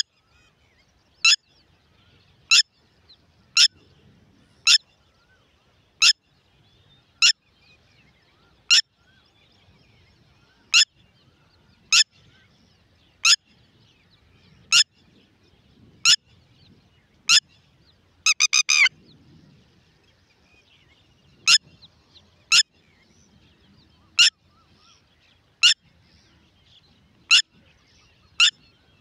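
Red-wattled lapwing calling: loud, short, sharp single notes repeated about every second and a half, with a quick run of about five notes about eighteen seconds in.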